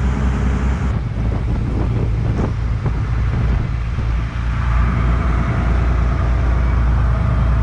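A fishing boat's engine running steadily under way, a deep hum with the rush of wind and water over it.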